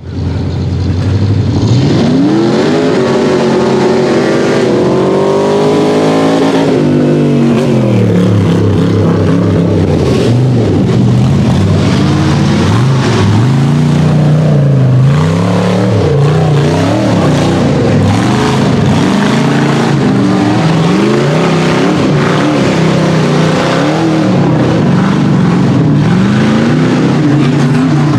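Rock bouncer buggy's engine revving hard. Its pitch climbs for several seconds, drops, then rises and falls again and again as the throttle is worked.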